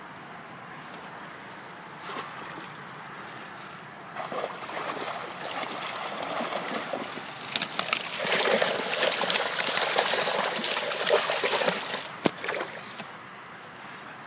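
Water splashing and sloshing as a net of fish is tipped into a pond, the fish thrashing at the surface. The splashing builds from about four seconds in and is loudest in the second half, with a single sharp knock near the end before it dies away.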